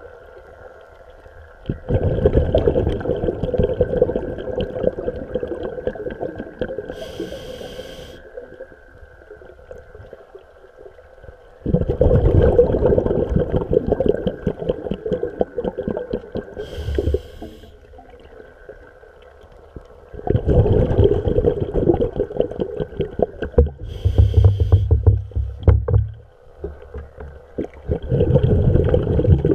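Scuba breathing through a regulator, heard underwater: four loud bubbling bursts as breaths are exhaled, about eight to nine seconds apart and each lasting two to three seconds, with a short hiss from the demand valve at each inhale in between.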